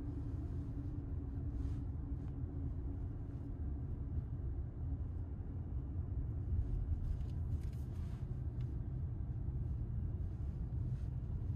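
Road and engine noise inside the cabin of a car driving slowly, a steady low rumble with a few faint ticks.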